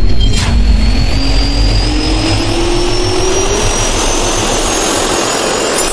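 Jet-engine turbine sound effect in a logo intro: a deep rumble and rushing air with a whine that slowly rises in pitch as the engine spools up. A sharp hit comes about half a second in.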